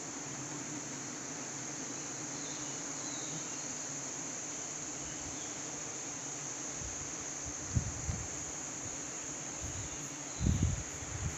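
Steady high-pitched drone of forest insects, with a fainter low hum underneath. A few low thumps near the end.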